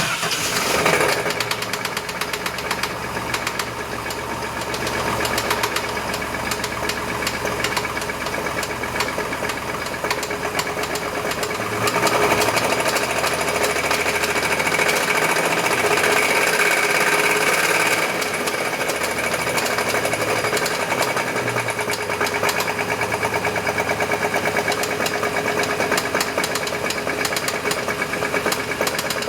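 Chevy S10 pickup engine running with a fast, steady knocking, which the owner believes is rod knock. It comes in suddenly at the start and runs louder for several seconds in the middle.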